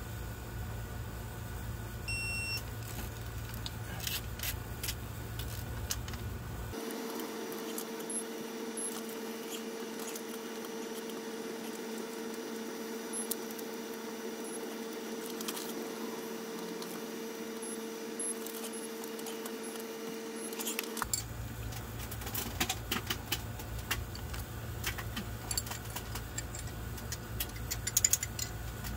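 Metallic clicking and clinking of a torque wrench and socket working the head-stud nuts on a Duramax diesel cylinder head, with a steady hum through the middle stretch. The sharpest clinks come near the end, as small metal valve-train parts are handled.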